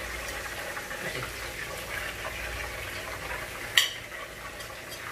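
Hot oil sizzling steadily in a frying pan, with one sharp clink about four seconds in.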